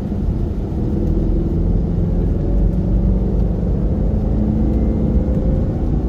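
Supercharged 4.2-litre V8 of a 2007 Range Rover heard from inside the cabin under road rumble, its note climbing slowly as the car accelerates in sport mode. It pulls evenly with no misfire on fresh ignition coils and spark plugs, and the driver says it "sounds good".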